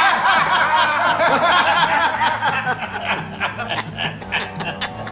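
Men laughing loudly together, the laughter dying down after about three seconds.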